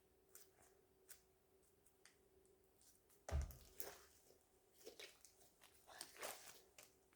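Slime being kneaded and stretched by hand, with faint scattered squelches and small pops, and one louder thump a bit over three seconds in.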